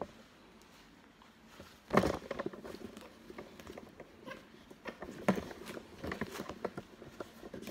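Close handling noises: a sharp knock about two seconds in, then irregular light taps, clicks and clothing rustle as a pet squirrel monkey scrambles over a person's arm and the handheld phone is jostled.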